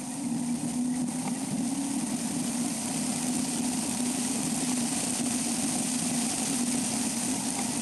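Vehicle driving: a steady engine hum under an even hiss of road and wind noise, picked up by a camera mounted on the vehicle's roof.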